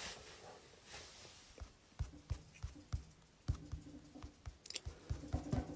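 Quiet small room with faint, scattered clicks and soft knocks.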